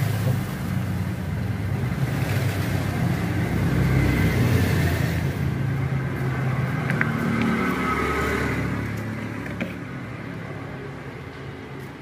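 A motor vehicle's engine running as it passes close by in traffic, rising to its loudest about four seconds in and fading toward the end, with a few faint clicks.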